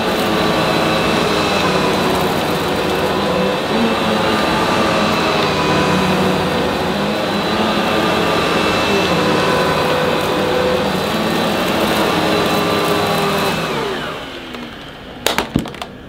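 Vorwerk Kobold upright vacuum cleaner running steadily with a motor whine, then switched off near the end, its motor winding down in falling pitch. Two sharp clicks follow.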